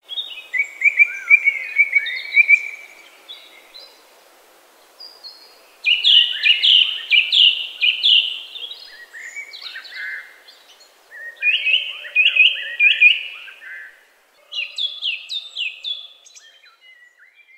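Songbirds singing: four runs of quick, repeated high chirping notes with short pauses between them.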